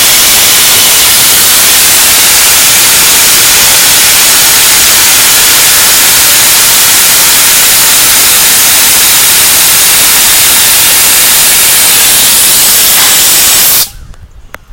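Compressed air blasting out of an air hose from a Quincy air compressor's tank in one long, loud, even hiss that cuts off suddenly near the end. The air is being let out, yet the compressor does not kick on.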